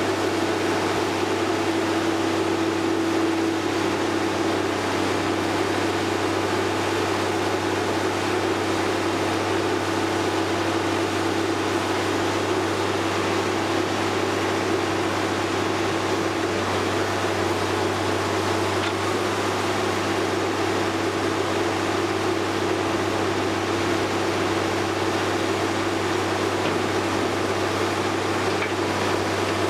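Logger baler running steadily on its Cummins 5.9-litre six-cylinder diesel, a constant mechanical hum with a steady whine over it and no change in speed.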